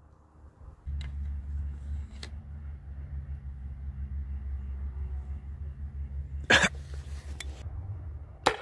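A steady low rumble with a couple of light clicks, then a sharp loud pop about six and a half seconds in, with smaller pops near the end. The pop fits the homemade gun going off on a bulletless .22 shell.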